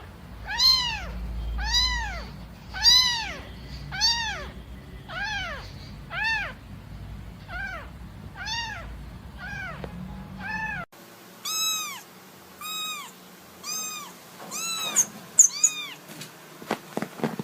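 Kittens meowing over and over, about one call a second, each call rising and then falling in pitch. About eleven seconds in the background changes abruptly and a run of higher-pitched meows follows, then a few sharp clicks and rustles near the end.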